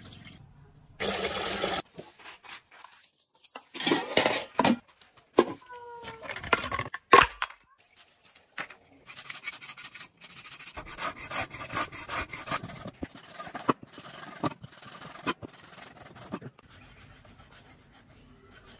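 A cleaver cutting pork belly on a wooden chopping board: a run of short cuts and scrapes, two to three a second, from about ten seconds in. Before that comes a short burst of water pouring, then scattered knocks and clatter.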